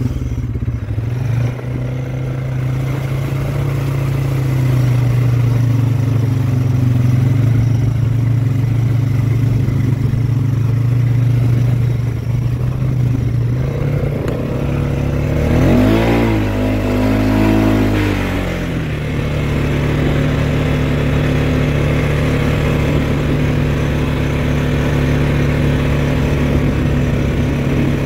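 A four-wheeler ATV's engine running steadily while riding. About halfway through it revs up and down for a few seconds, then goes back to a steady run.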